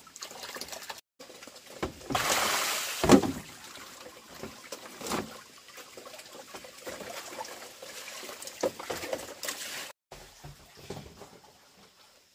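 Water sloshing and trickling in a container, with small knocks of handling and a louder rush of water about two seconds in.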